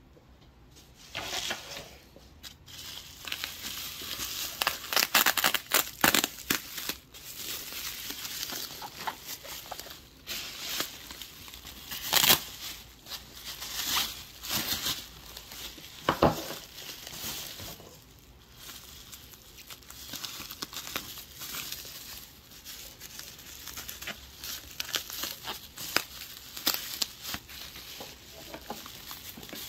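Plastic bubble wrap being pulled open and unwrapped by hand: irregular crinkling and rustling with sharp crackles.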